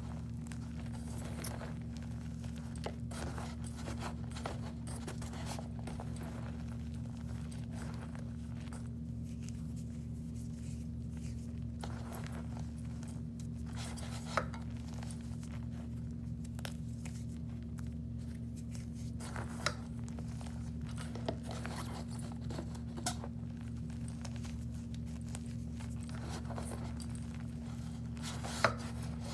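Small objects handled close to the microphone: scattered light clicks, taps, scrapes and crinkles, with a few sharper clicks, over a steady low electrical hum.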